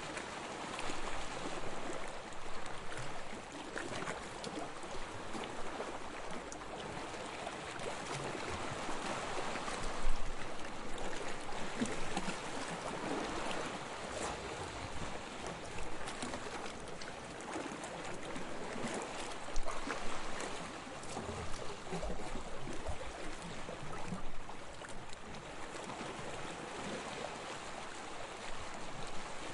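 Sea water lapping and splashing steadily, with many small splashes and two louder splashes, about a third and two-thirds of the way through.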